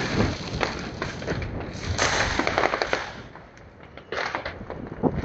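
Fireworks going off: a dense run of bangs and crackles that eases off about three seconds in, then a fresh burst of sharp bangs about a second later.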